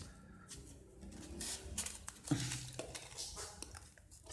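Small plastic action-figure parts being handled, giving a few light clicks and taps as a hand and its peg joint are swapped.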